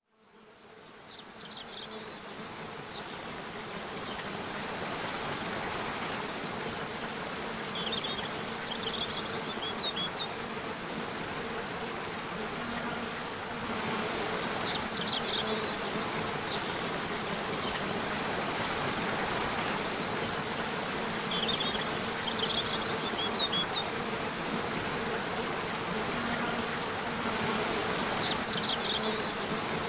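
Nature ambience: a steady rush of running water that fades in over the first few seconds, under a faint steady buzz. Short clusters of high bird chirps come every several seconds.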